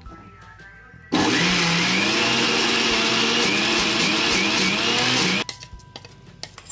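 Indian mixer-grinder (mixie) motor grinding coconut chutney in its steel jar. It starts about a second in, runs loud and steady for about four seconds, and cuts off suddenly, followed by a few light clinks.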